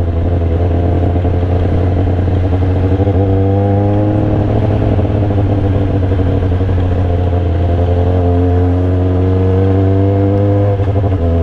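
Sport motorcycle engine running under way at low road speed, heard from on the bike, its pitch rising and falling gently with the throttle.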